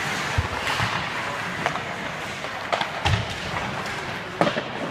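Ice hockey play in an indoor rink: about five sharp, echoing clacks of sticks and puck over a steady scraping hiss of skates on the ice, the loudest clack near the end.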